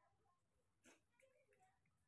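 Near silence: room tone, with one faint click a little under a second in.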